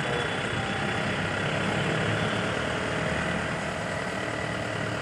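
Heavy diesel vehicles, an excavator and trucks, running and idling together as a steady rumble.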